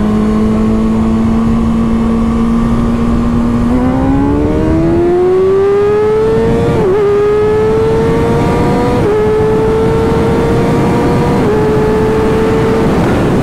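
Kawasaki supersport motorcycle's inline-four engine in a roll-on from second gear: it holds a steady note for about four seconds, then is opened up hard and climbs in pitch, with three quick upshifts (about seven, nine and eleven and a half seconds in), each a brief dip before the note climbs on. Wind rushes over the microphone throughout.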